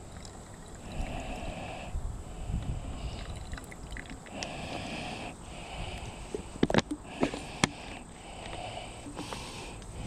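Thin plastic soda bottles being squeezed and handled while water is pushed through a squeeze water filter: soft hissing squeezes, then a cluster of sharp plastic crackles about seven seconds in.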